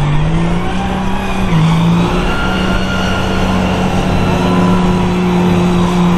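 Two mega trucks' engines revved hard and held at high revs under full load as they pull against each other, with tyres spinning on the pavement. The engine note climbs in the first second, dips briefly about a second and a half in, then holds steady.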